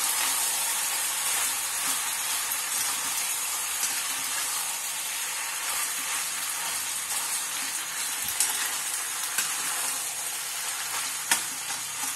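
Macaroni sizzling in a hot kadai on a gas stove while a steel spatula stirs and tosses it, a steady frying hiss. A few sharp clicks of the spatula against the pan come in the second half.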